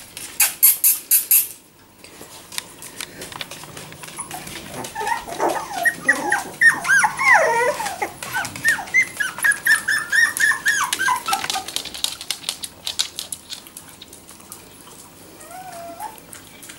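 Four-week-old Jack Russell Terrier puppies whining and squeaking: a flurry of short, high cries for several seconds in the middle. A quick run of sharp clicks comes near the start.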